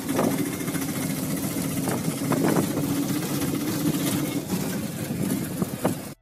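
Vehicle engine running steadily, heard from inside the cabin, with a few short rattling knocks.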